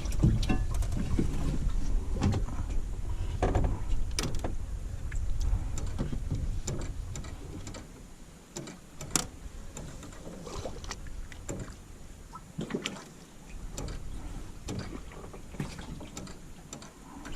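Irregular knocks and clicks of fishing gear and hands on a small fishing boat, over a low rumble that eases off about halfway through.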